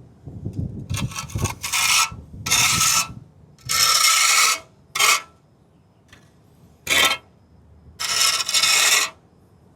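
A steel margin trowel scraping over a freshly placed quick-setting cement patch on a concrete curb, shaping it: about seven separate strokes, each from half a second to a second long, at an uneven pace.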